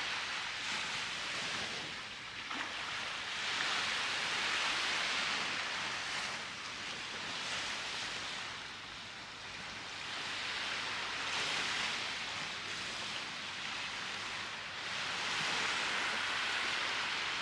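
Small waves washing onto a sandy beach, a soft hiss that swells and eases three times, about every six seconds.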